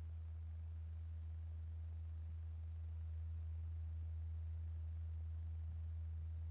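A steady low sine tone around 80 Hz, the test tone exciting a paper diaphragm strewn with lycopodium powder for a cymatics experiment.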